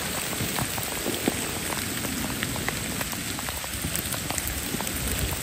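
Steady rain falling, with many close, sharp drops pattering irregularly over an even hiss.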